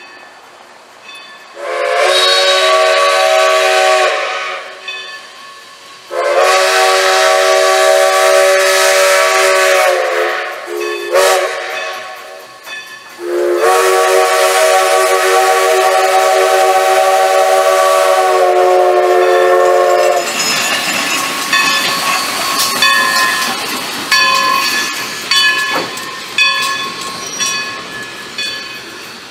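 Steam locomotive whistle sounding the grade-crossing signal of long, long, short, long: two long blasts, a brief toot, then a final blast held for several seconds, a warning for a road crossing ahead. After the whistle, steam hiss and the rattle and clank of the locomotive and cars rolling past.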